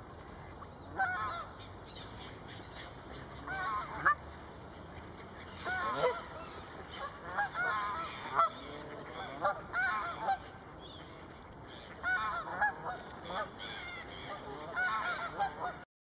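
Geese honking in short bouts of several calls every second or two; the sound cuts off abruptly near the end.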